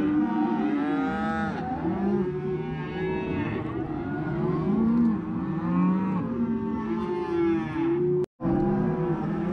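A herd of cattle bawling, many overlapping moos without a break: freshly weaned calves and their mothers calling for each other across a fence line, a sign of weaning stress. The sound cuts out for a split second about eight seconds in.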